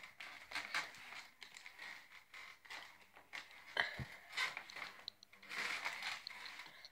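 Wrapping paper rustling and tearing as a many-layered gift is unwrapped by hand, with a single knock about four seconds in.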